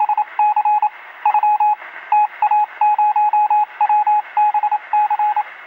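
Morse code beeps: one steady tone keyed on and off in irregular groups of short and long pulses over a hiss of radio static.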